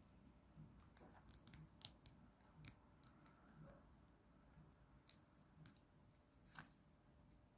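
Near silence with several faint, sharp clicks scattered through: fingers turning the small threaded lens on an action camera's sensor module while trying to focus it.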